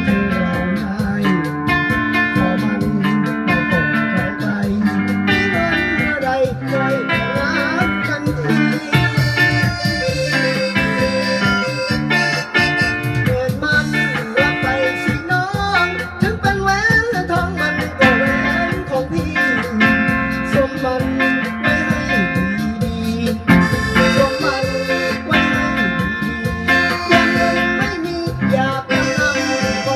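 A small band playing a song live: electric guitar and keyboard, with a singer on a microphone.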